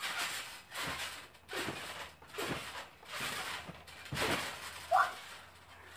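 Children bouncing on a trampoline: a rush of noise from the mat with each landing and rebound, about one bounce every three-quarters of a second. A brief voiced sound comes about five seconds in.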